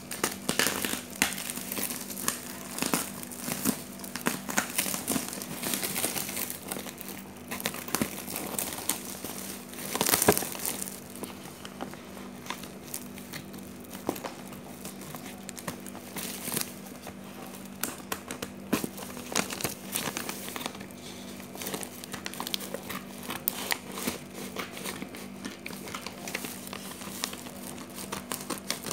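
Plastic wrapping on a parcel crinkling and tearing as it is cut open with a box cutter and pulled by hand, in irregular crackly strokes with a louder burst about ten seconds in.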